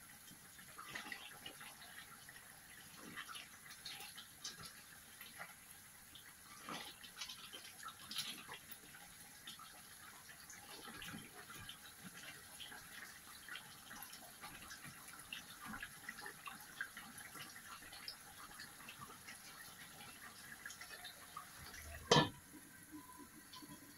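A plastic spatula stirring and scraping a curry in a metal pan, with light sizzling and many small clicks. Near the end a metal lid is set down on the pan with one sharp clank.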